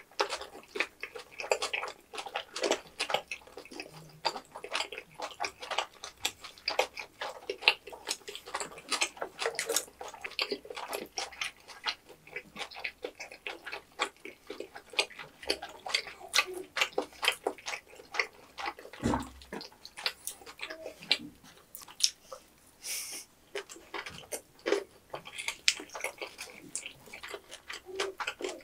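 Two people chewing mouthfuls of sauce-coated tteokbokki rice cakes and fried snacks close to the microphone: a steady run of small smacking clicks, with one low thump about two-thirds of the way in.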